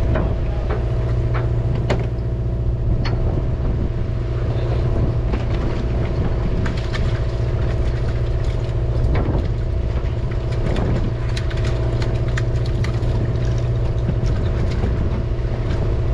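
Fishing boat's engine running steadily, a constant low hum with a drone over it, with scattered light clicks and knocks on top.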